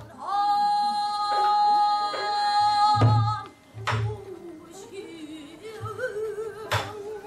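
Female pansori singer holding one long high note for about three seconds, then dropping to a lower, wavering line with heavy vibrato. Drum strokes mark the beat, loudest just as the held note ends and again about a second later and near the end.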